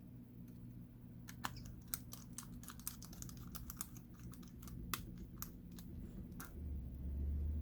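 Quick, irregular run of small sharp clicks and taps: tiny screws and a precision screwdriver knocking against a Samsung Galaxy Note 9's frame and bracket as the screws are set back in. A low steady hum comes in near the end.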